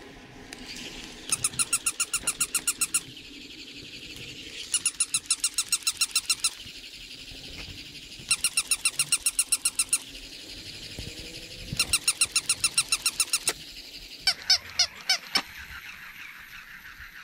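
Battery-powered plush toy dog making its electronic yapping sound: four bursts of rapid, high-pitched chirps, about seven a second, each under two seconds long and a couple of seconds apart. A shorter, more uneven run of chirps follows near the end.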